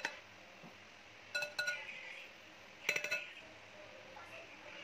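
Glass mixing bowl clinking as it is knocked, in two short clusters of ringing taps about a second and a half apart.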